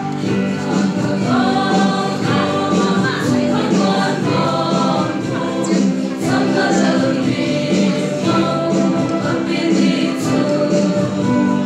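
A mixed choir of young men's and women's voices singing together, steady and continuous.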